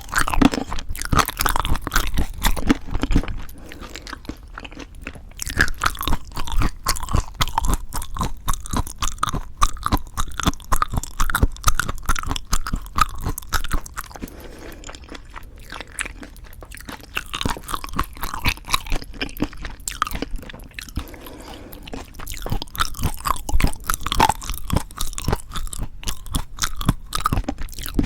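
Close-miked chewing with irregular wet crunches, from a mouth eating leaf-wrapped bites of raw fish bibimbap and boneless chicken feet. The chewing eases off for a while in the middle, then grows louder again.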